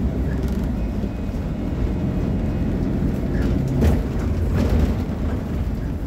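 Diesel engine of a VolksBus 17.230 OD city bus idling steadily, with a brief knock about four seconds in.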